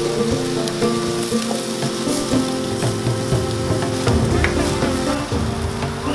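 Ground beef and lamb seekh kebabs sizzling on skewers over glowing charcoal, a steady crackle with small scattered pops. Background music with held notes that change pitch every second or so runs underneath.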